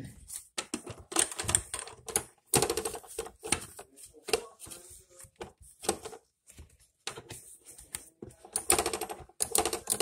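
A cloth scrubbing and wiping the plastic ice and water dispenser recess of a KitchenAid refrigerator door. It makes rapid, irregular rubbing and tapping strokes in clusters, loudest near the end.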